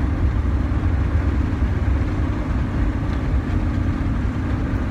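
Steady low rumble of a pickup truck's engine and road noise heard from inside the cab while driving.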